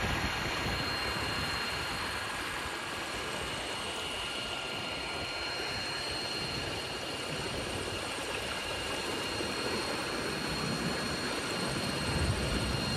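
Small outboard motor driving an inflatable dinghy under way: a steady engine drone with a constant high whine on top, over a rush of wind and water.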